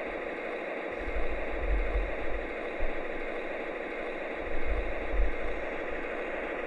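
Sound system of an MTH Premier ES44AC O-scale model locomotive (Proto-Sound 3), playing a diesel engine idling through the model's small onboard speaker as a steady hissy drone, with low rumbles twice.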